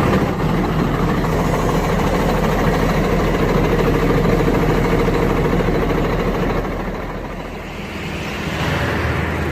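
Truck diesel engine running steadily at idle, dipping a little in loudness about seven seconds in before picking back up.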